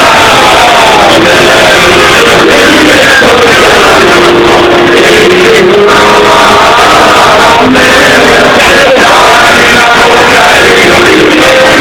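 Live amplified band music with a singer's melody over it, very loud throughout.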